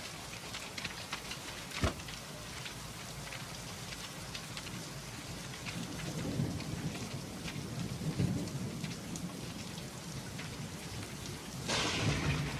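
Heavy rain pouring down, with thunder rumbling low in the middle and a louder thunderclap near the end. A single sharp crack comes about two seconds in.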